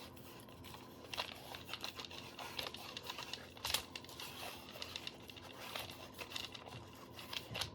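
Faint small clicks and scrapes of hand handling: the magazine tool being turned to unscrew the CO2 cap on a Byrna SD less-lethal pistol.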